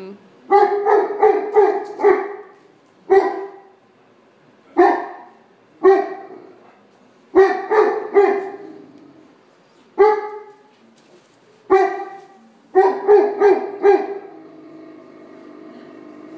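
Newfoundland dog barking in repeated bouts: single barks and quick runs of three to five, with short pauses between.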